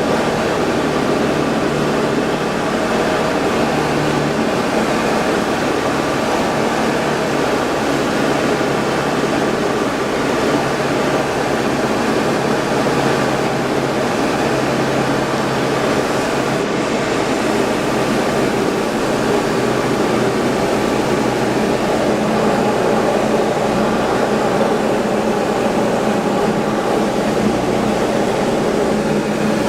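Diamond DA20-C1's four-cylinder Continental IO-240 engine and propeller running in flight, a steady drone. The engine note shifts slightly about three-quarters of the way in.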